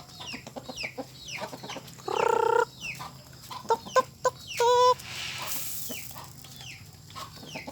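Chickens clucking and calling as they feed on bran, with many short high calls, a louder drawn-out call about two seconds in and a shorter one near five seconds.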